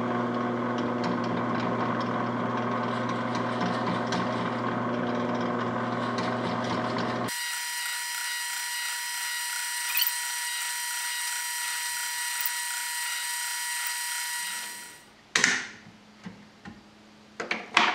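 Benchtop drill press running at slow speed, boring a 20 mm hole into a wooden block with a Forstner bit: a steady motor hum with cutting noise. About seven seconds in the sound changes abruptly and loses its low hum; it stops about fifteen seconds in, followed by a few sharp knocks near the end.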